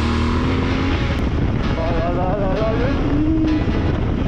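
Yamaha Ténéré 700 World Raid's parallel-twin engine running steadily under way on a dirt track, mixed with wind rush on the microphone.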